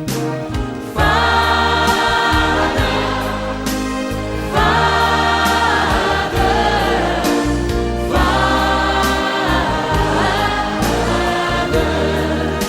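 Christian worship song with choir singing over instrumental backing, in three long held phrases.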